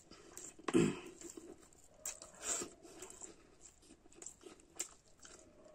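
Close-up eating sounds of a person eating rice and curry by hand: a louder mouth sound about a second in as a handful goes into the mouth, then wet chewing, lip smacks and small clicks.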